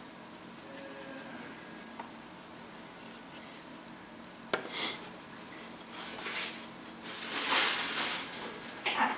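Small objects being handled on a work table: a sharp click about halfway through, then several short rubbing or scraping sounds and another click near the end.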